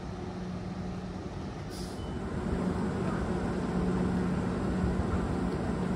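A train running, with a steady hum under its rumble, getting louder from about halfway through.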